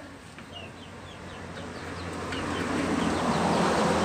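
Honda Supra Fit's single-cylinder four-stroke engine running, then revving up and getting louder in the second half. It runs smooth, without the cam-chain clatter, after repair of a worn cam chain and damaged cam chain tensioner. Birds chirp throughout.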